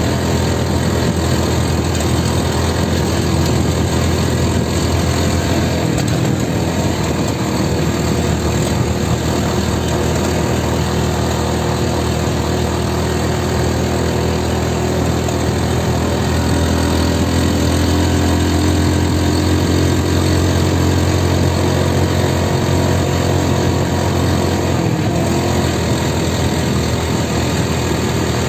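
Motorcycle engine running steadily under way, with a small swell in the engine note in the second half and a brief dip near the end.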